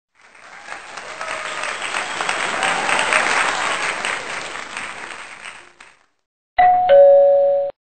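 Crowd applause swells and fades over about six seconds. After a short gap comes a brief two-note chime, the second note lower, cut off after about a second.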